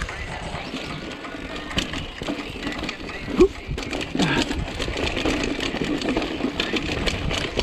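Mountain bike rattling down a rocky dirt trail: tyres crunching over dirt and stones, with a steady clatter of chain and frame over the bumps. A short loud sound stands out about three and a half seconds in.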